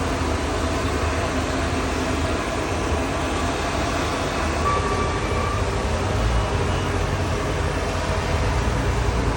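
Steady, loud engine noise: a deep rumble under an even roaring hiss, with no breaks.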